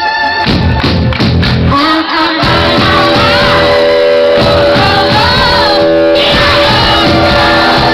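Live rock band playing with a female lead singer, loud throughout; from about two seconds in a chord is held steady under her sung lines.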